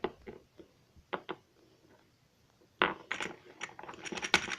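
Small plastic toy figurines tapping and clicking on a hard surface: a few separate taps, then from about three seconds in a fast run of clicks.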